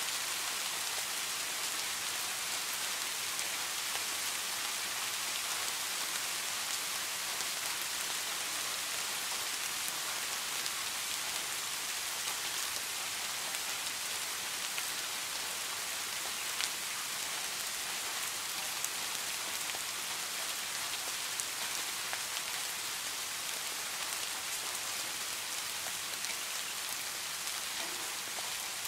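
Steady rain falling, an even hiss with a few louder single drop hits.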